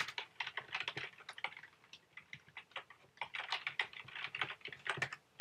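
Typing on a computer keyboard: quick runs of keystroke clicks, with a lull of about a second near the middle before a second run of typing.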